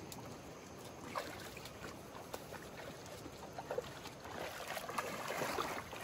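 Shallow creek water flowing and sloshing over stones, with scattered small splashes that get louder and busier about four seconds in.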